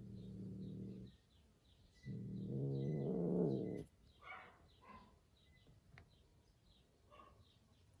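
Grey tabby cat growling low into a box hole at hidden kittens: a short growl, then a longer, louder one, followed by a few short, higher cat calls. Birds chirp faintly in the background.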